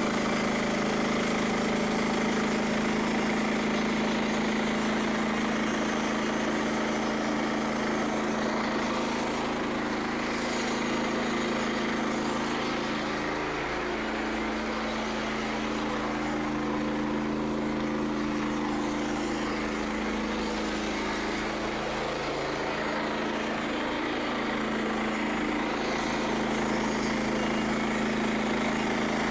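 Frontier OS27 portable band sawmill's small gasoline engine running steadily at constant speed, its pitch dipping slightly a couple of times as if under load.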